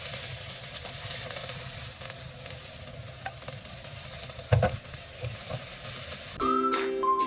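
Food sizzling in a hot pan while it is stirred, with light scraping and a single sharp knock of the utensil against the pan about four and a half seconds in. A bright tune with a whistled melody and plucked strings comes in near the end.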